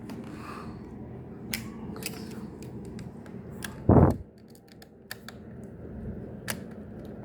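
Scattered small clicks and taps of laptop parts being handled as the cooling fan's connector is plugged in, with one loud, muffled low thump about four seconds in.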